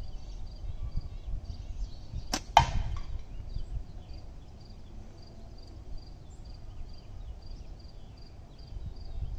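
One slingshot shot: a sharp snap as the Falcon latex bands are released, then about a quarter second later the 3/8-inch steel ball hits a metal can in the catch box with a louder clank and a short ring.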